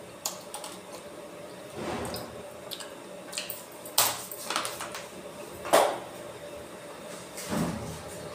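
Scattered clicks, knocks and rustles of kitchen handling over a steady faint hum, the sharpest clicks about four and six seconds in.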